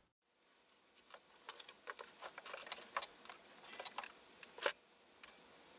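Faint, irregular clicks and light taps, the loudest two near the end, from a circuit board and soldering iron being handled while resistor leads are soldered.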